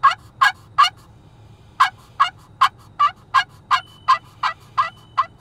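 Turkey friction pot call worked with a carbon-fiber striker, giving a series of sharp yelps: three quick notes, a short pause, then a steady run of about ten more.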